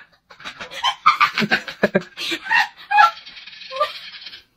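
A person's voice making wordless vocal sounds and laughter, in short bursts, with a steady buzzy sound in the last second and a half.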